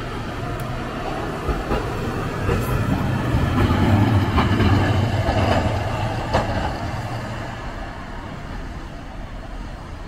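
Hiroshima Electric Railway 1900-series streetcar passing at low speed. Its running hum swells and fades as it goes by, and its wheels clack over rail joints and crossing track four times.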